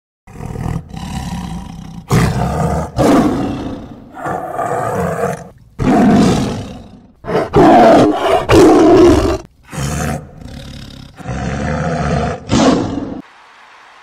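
Lions roaring: a loud series of about a dozen deep calls, one after another, that cuts off abruptly near the end.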